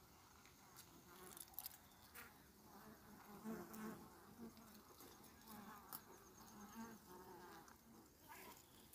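Faint buzzing hum of a calm colony of Italian honeybees crowded on exposed comb, swelling and fading, with a few sharp clicks.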